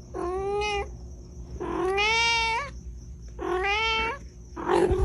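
A cat meowing: four long, drawn-out meows, each rising in pitch, the second the longest.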